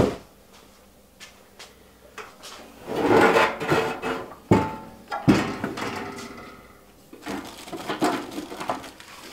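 Ryobi STH401 21-gauge sheet-steel wall cabinet being handled and tipped upright on a plywood workbench: a sharp knock right at the start, then scraping and rustling about three seconds in, two more knocks about a second apart, and lighter clicks and taps near the end.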